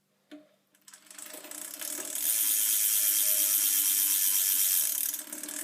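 BMX rear wheel hub ratcheting as the wheel is spun, its freewheel pawls clicking so fast they run together into a steady buzz. It builds up over a second or two, holds loud, then eases off near the end.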